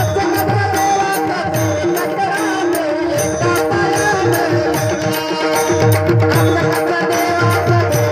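Bhajan accompaniment: a tabla playing a steady rhythmic pattern, its bass drum strokes bending in pitch, under held steady notes and an evenly spaced high ticking beat.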